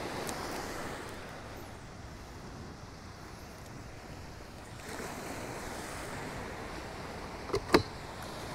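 Surf washing steadily onto a sandy beach, swelling a little about five seconds in, with two short sharp clicks near the end.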